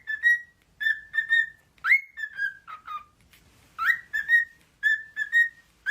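Cockatiel whistling a repeated phrase: a quick rising swoop followed by a few short, clear held notes, the phrase coming again about every two seconds.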